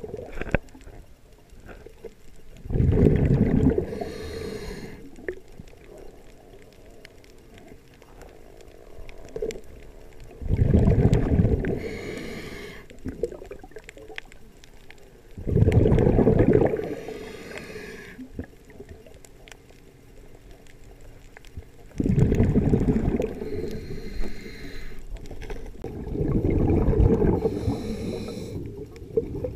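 A diver's exhaled breath bubbling out underwater, five bursts of a second or two each, several seconds apart, the rhythm of steady breathing.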